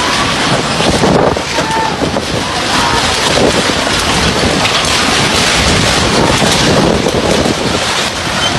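Strong storm wind buffeting the microphone, a loud, steady rushing noise.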